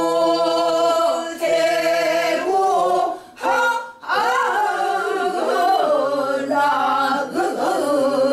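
Several voices singing a Korean folk song together, unaccompanied, led by a woman's voice: long held notes with a wide, wavering vibrato and sliding pitch. There is a brief pause for breath about three seconds in.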